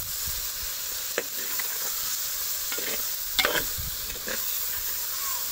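Steel ladle stirring fried chicken pieces through masala in a clay pot, scraping and knocking against the pot's sides over a steady sizzle of frying. The loudest scrapes come a little past the middle.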